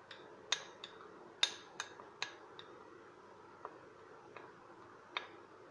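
Metal spoon clinking against a small glass bowl while stirring a dry spice mix, in light, irregular taps.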